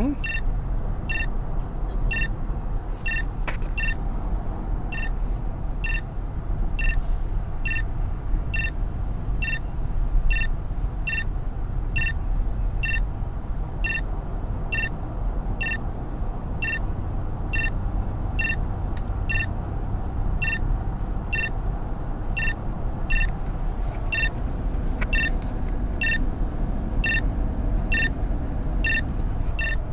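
Steady road and engine noise inside a moving car, with a short electronic beep repeating evenly about every three-quarters of a second.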